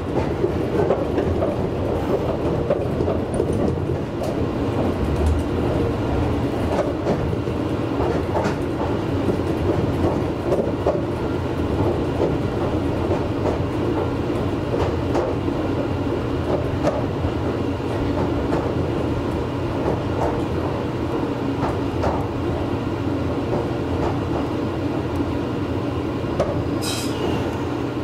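Meitetsu 6800-series electric train running, heard from inside the front car, with steady rolling noise and wheels clicking over rail joints. A brief high-pitched sound comes near the end.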